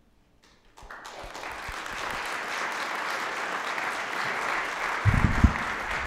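Audience applauding, the clapping rising in about a second in and then holding steady. A few low thumps sound near the end.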